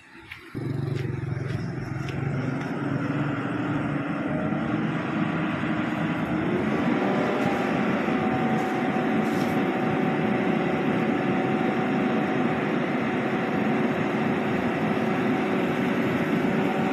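Garbage compactor truck's diesel engine running close by, starting suddenly about half a second in; its pitch climbs over a few seconds and then holds at a higher, steady speed.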